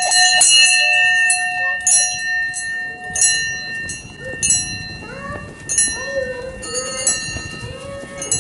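Hanging metal bell rung by its clapper rope, struck again and again every half second to a second. Each stroke rings on in steady, overlapping tones.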